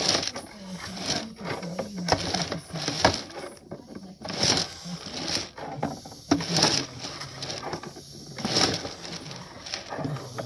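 Drain inspection camera's push rod being fed by hand into a PVC sewer pipe: a rhythmic rubbing, rattling stroke about once a second as the camera is pushed forward.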